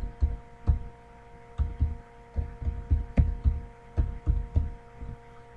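Typing on a computer keyboard: an irregular run of about fifteen keystrokes, each a short thudding tap, with a brief pause about a second in. A steady electrical hum runs underneath.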